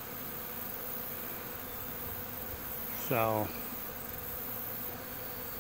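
Steady, dense hum of a large honeybee colony flying around and clustered on a five-box Langstroth hive. The colony is stirred up after its honey boxes were opened for frames.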